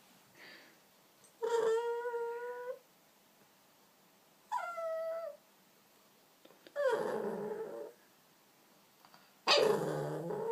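Jug puppy (pug and Jack Russell terrier cross) whining because she can't climb up: four separate cries, the first a held whine, the second dropping in pitch at its end, then two harsher, louder cries.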